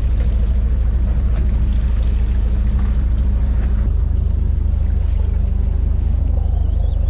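A fishing boat's engine running steadily at low revs, a rapid low pulsing rumble with a steady hum over it and light water and wind noise. The tone shifts slightly about four seconds in.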